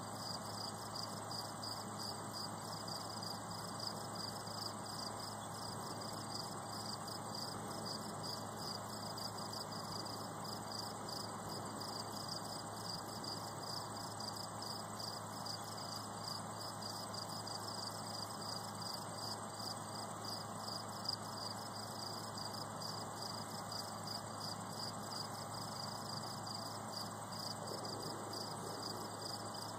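Crickets chirping in an even, regular pulse that holds steady throughout, with a fainter continuous high insect drone above it.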